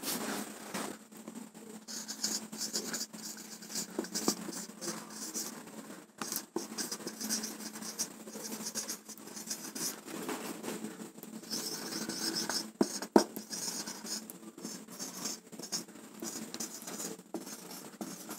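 Marker pen scratching across a whiteboard in short, irregular strokes as words are written, with a couple of sharp taps about thirteen seconds in.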